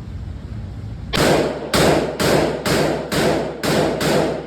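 Seven gunshots fired in quick succession, about two a second, each a sharp report with a short ringing tail. The first comes about a second in.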